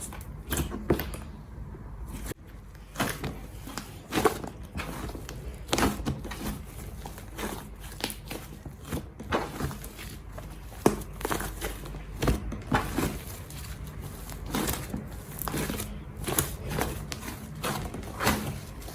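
Slime being squeezed, poked and stretched by hand, with irregular sticky crackles and pops.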